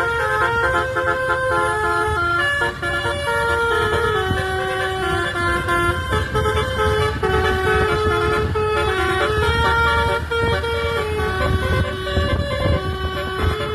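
Bus telolet horn, a Basuri multi-tone air horn, playing a continuous tune of stepping notes over a low rumble from the bus.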